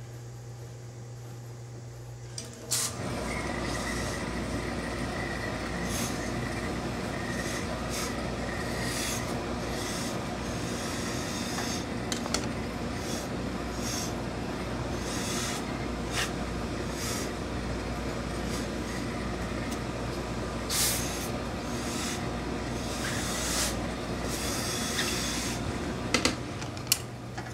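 Hose-fed steam iron pressing a suit jacket panel: a steady hiss starts about three seconds in, with repeated short spurts of steam, and stops with a few clicks near the end.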